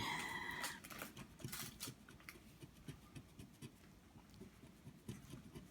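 Faint, uneven scratching and light clicks of a coin rubbing the latex coating off a scratch-off lottery ticket.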